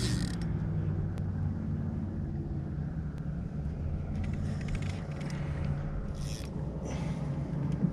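A steady low motor drone, with faint creaks and scrapes of a spinning reel being cranked.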